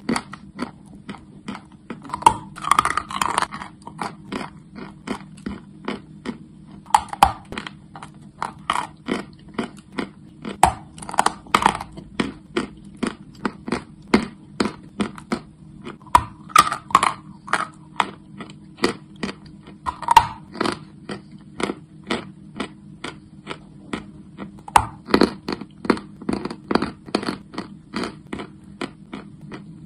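Close-miked crunching of chalk being bitten and chewed: a steady run of sharp crunches, about two to three a second, over a faint steady low hum.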